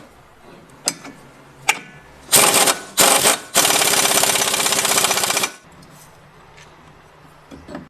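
Impact wrench tightening the fastening nut on a newly fitted tie rod end: two short rattling bursts, then a steady rapid hammering run of about two seconds that stops abruptly. A few light clicks of tools come before it.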